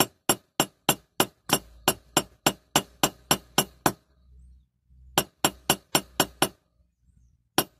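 Small hammer tapping the end of a metal pin to peen it over and flatten it, in light, ringing metallic strikes about three a second. The tapping stops about four seconds in, comes back for a short run of about five strikes, pauses again and starts once more near the end.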